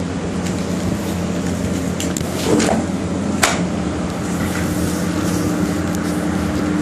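Steady low mechanical hum, with two sharp knocks, about two and a half and three and a half seconds in.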